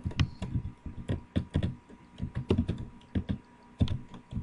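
Computer keyboard keys tapped in irregular clusters of clicks while text is deleted and selected in a code editor.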